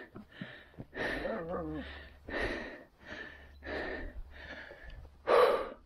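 A man breathing hard and fast, loud rasping breaths in and out about every half second to two-thirds of a second, as when panting while climbing a slope on foot.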